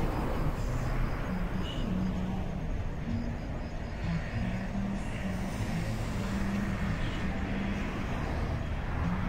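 Outdoor ambience: a steady low rumble of road traffic.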